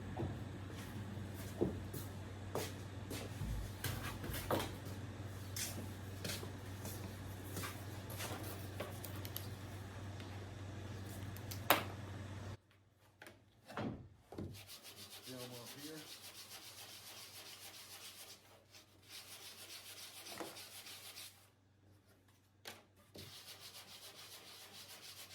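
Sandpaper rubbing on the wooden parts of an aircraft aileron: a steady scratchy hiss with a low hum and scattered light knocks. About halfway it drops off and goes on as quieter, finer sanding in short spells.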